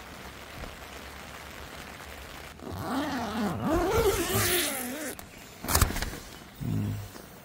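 Steady hiss of heavy rain on a tent, then a drawn-out, wavering voice-like sound that glides up and down in pitch for about two seconds, a sharp click, and a short low vocal sound near the end.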